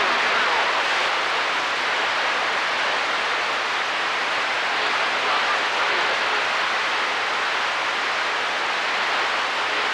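CB radio receiver giving a steady hiss of static on an open channel between transmissions.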